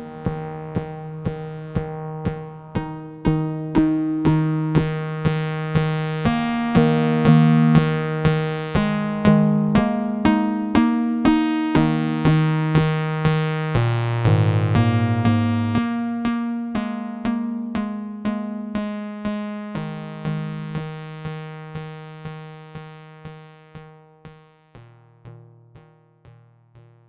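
Eurorack modular synthesizer playing a repeating sequence of short plucked notes, a Winterbloom Castor & Pollux oscillator pinged through a Steady State Gate low pass gate with Xaoc Sarajewo BBD delay. The notes fade out gradually over the second half.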